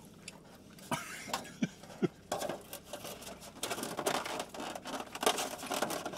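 Takeout food packaging, taco wrappers and a clear plastic container, crinkling and rustling as it is handled while eating. It starts about two seconds in, after a few soft clicks.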